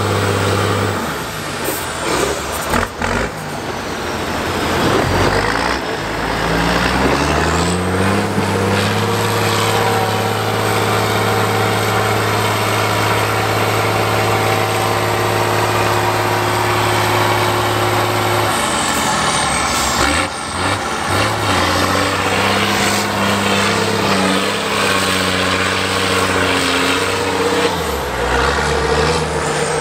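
Truck-trial competition truck's engine working hard as it climbs out of a muddy gully: the revs rise steeply, hold high for about ten seconds, drop, then rise and fall again. A high whine follows the revs, and a few sharp knocks come early on and about two-thirds through.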